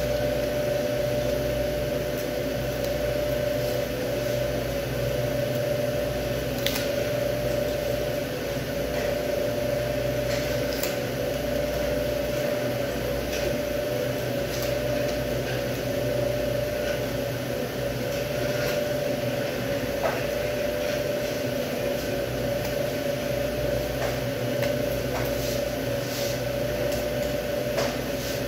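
Steady machine hum with a constant tone running throughout, with a few faint, sharp clicks and scrapes as a boning knife works along a rack of beef ribs.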